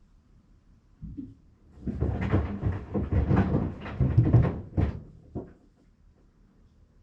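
Sandals knocking and thudding against the inside of a Maytag washing machine as it agitates: one knock about a second in, then a rapid, irregular run of thuds from about two seconds to about five seconds, and a last knock or two after.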